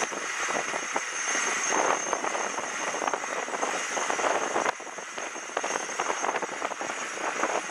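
Mainsail canvas flapping and rustling as it is hauled up a schooner's wooden mast, with many quick knocks and clicks from the sail and its gear.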